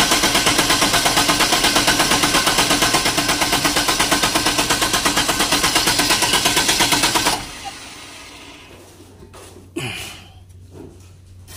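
Diesel generator engine cranked by its electric starter without catching: a rapid, even chugging of about eight strokes a second that stops abruptly about seven seconds in, when the starter is released. The genset is hard starting, which the owners put down to water in its diesel fuel. A few light knocks follow.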